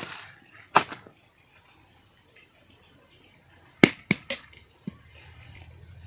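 Several sharp knocks: one about a second in, a quick run of three near four seconds, and a lighter one near five seconds. A faint low steady hum starts near the end.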